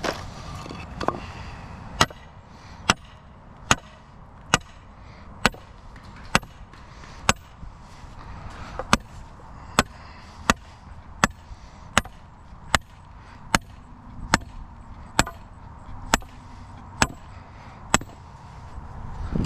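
Hammer blows struck at a steady pace, about twenty sharp strikes at a little more than one a second, each with a brief ring. This fits driving stakes or rebar while preparing a driveway subgrade for concrete.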